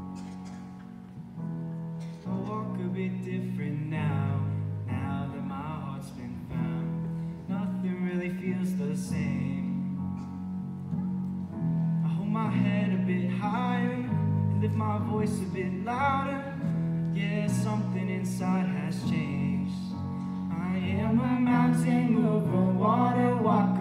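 A girl singing solo into a microphone over a sustained instrumental accompaniment, amplified through a sound system; the accompaniment starts alone and her voice comes in about two seconds in.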